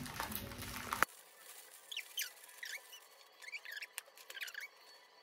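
Rustling handling noise for about a second, then a run of about ten short, high squeaks that bend up and down in pitch, spread over the next few seconds, with a single light click among them.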